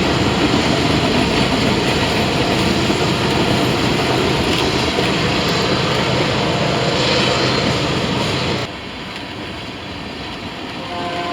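Loud steady roar of a freight train passing close by, cutting off abruptly about nine seconds in. Near the end a diesel locomotive's horn starts sounding, several notes at once.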